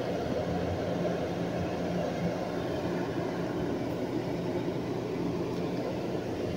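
Motorized gate's electric operator running: a steady low hum with a rumbling noise under it.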